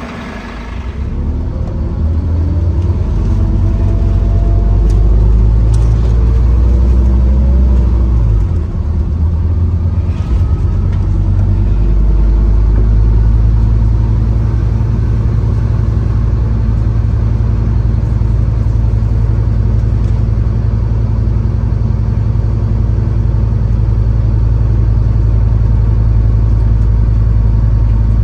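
Scania N230UD OmniCity bus's five-cylinder diesel engine pulling away under load. Its pitch rises in steps over the first eight seconds, dips briefly, then settles into a steady heavy drone, heard from aboard the bus.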